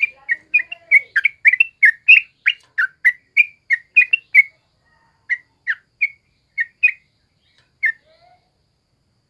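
Yellow-vented bulbul calling: a quick run of short, clear chirps, about four a second, for the first four seconds. After that, slower, spaced chirps that stop about eight seconds in.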